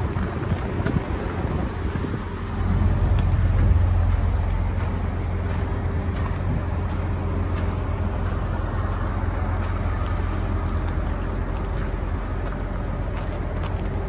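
A 2016 Ford F-150's 3.5-litre V6 gas engine idling steadily, its low hum swelling for a couple of seconds about three seconds in. Footsteps crunch on gravel at a walking pace.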